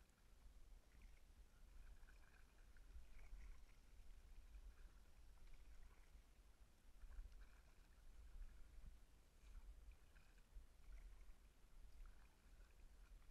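Near silence: faint, muffled kayak paddle strokes in the water with a low rumble, heard through a GoPro's sealed waterproof housing.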